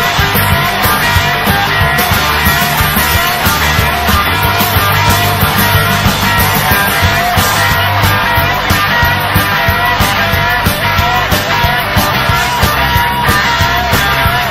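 Live rock and roll band playing at full volume, with a steady drum beat under the music.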